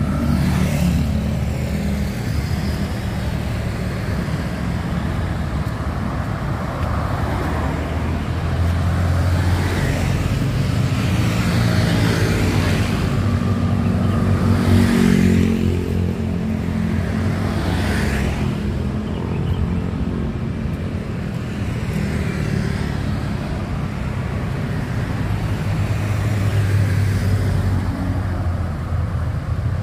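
Road traffic: motor vehicles running steadily along a city street, with several going past one after another, the loudest about halfway through.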